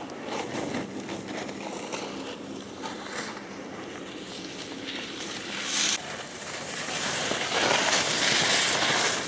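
A steady outdoor hiss at first, then skis scraping and hissing over packed snow, getting louder over the last few seconds.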